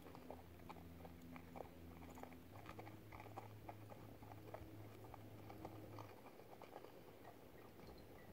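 Near silence: faint scattered clicks and crackles over a low, steady hum that fades about six seconds in.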